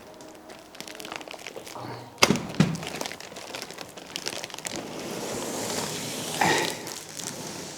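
Packaging being handled around a boxed model excavator: two sharp knocks a couple of seconds in, then a building rustle of plastic and packing material.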